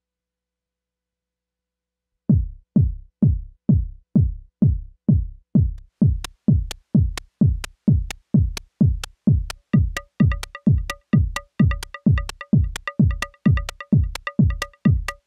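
Modular-synth drum pattern building up: a synthesized kick drum thumps steadily about twice a second. Short, bright snare ticks made from white noise with an envelope join about halfway in. A pitched woodblock sound from a modal resonator, triggered in Euclidean patterns, joins near the end.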